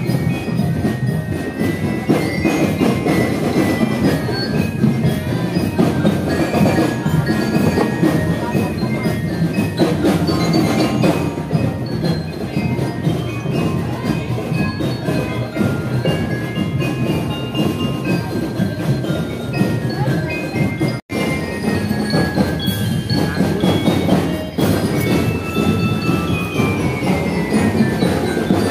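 Drum and lyre corps playing a march: bell lyres ring out the tune over continuous drumming, with a run of falling notes near the end. The sound cuts out for a moment about two-thirds of the way through.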